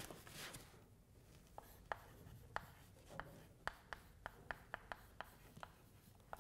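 Chalk writing on a blackboard: a quick run of faint, short taps and scratches as a stick of chalk strikes and drags across the board.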